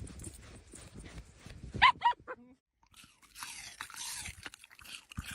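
A dog gives two short, high-pitched barks about two seconds in, over low scuffling thumps. After a brief gap, a steady crunching noise follows.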